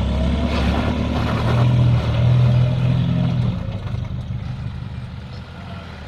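Toyota Hilux engine running at a steady, unchanging note as the 4x4 crawls up a rocky step, louder through the middle, then dropping away about four seconds in.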